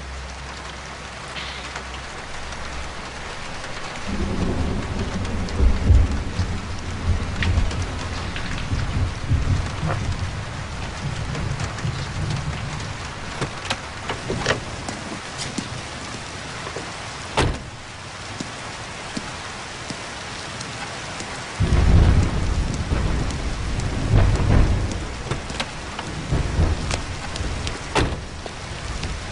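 Steady rain with two long, low rolls of thunder, one starting about four seconds in and another a little after twenty seconds, and a few sharp cracks in between.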